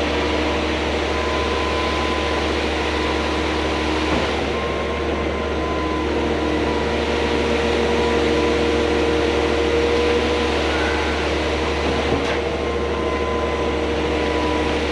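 Concrete pump truck running steadily while it pumps concrete, a constant mechanical drone with a low hum and a few held tones, and a light knock twice.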